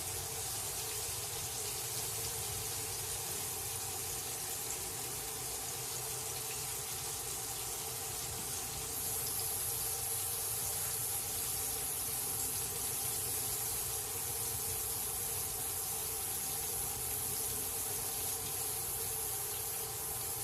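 Fish fillets frying in peanut oil in a cast iron pan on an induction hot plate: a steady sizzle. A thin high-pitched tone joins in about halfway through.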